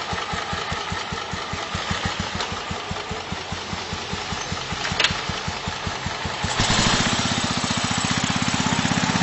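Royal Enfield Bullet single-cylinder four-stroke engine idling with an even thump, about seven beats a second. A sharp click comes about five seconds in. About six and a half seconds in, the engine is revved up and gets louder and faster as the bike pulls away.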